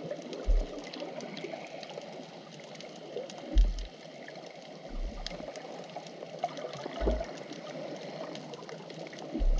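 Underwater wash of shallow sea water moving over a sandy bottom, heard through a camera close to the seabed: a steady rushing sound with scattered faint crackling clicks. Low thuds come at irregular moments, about five times, one every one to two seconds.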